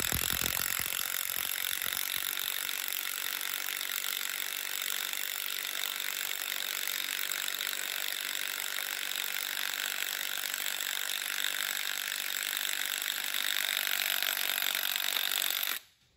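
Cordless impact hammering without a break as it runs in the harmonic balancer bolt, drawing the balancer onto the crankshaft of a 351 Windsor Ford small-block, which has only a light press fit. It stops abruptly just before the end.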